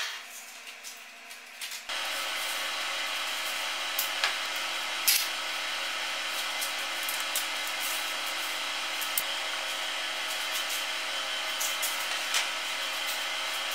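A steady rushing noise starts abruptly about two seconds in and carries on, with a few sharp rips and clicks of masking tape being torn and pressed onto sheets of oak veneer.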